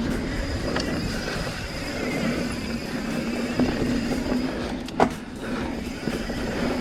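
Mountain bike rolling fast down a dirt trail, knobby tyres on the ground, with the steady buzz of an Industry Nine Hydra rear hub freewheeling. A sharp knock about five seconds in is the loudest sound.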